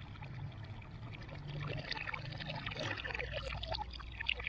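Water pouring and splashing from a long-handled scoop back into a plastic tub of water, in small irregular splashes.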